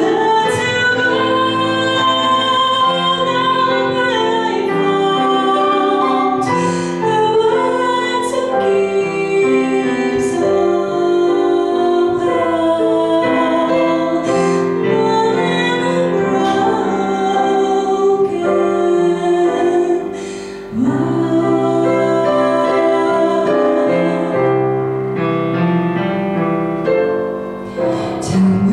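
A woman singing through a microphone with digital piano accompaniment, some of her held notes wavering with vibrato.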